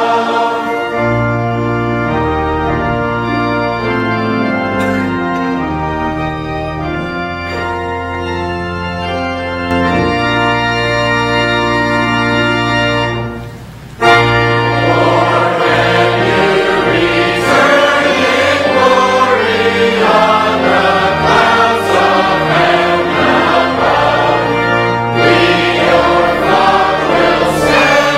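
Church organ playing steady held chords as an interlude between hymn verses. After a brief pause about halfway through, the congregation sings the next verse with the organ.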